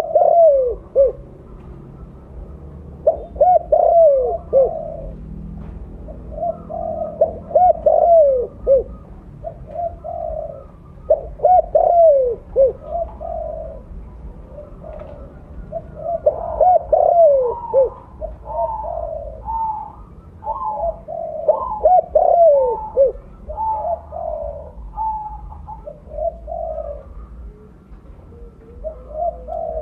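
Spotted dove (tekukur, mottled colour form) cooing in repeated phrases every few seconds. About halfway through, a higher series of coos overlaps the main calls for several seconds.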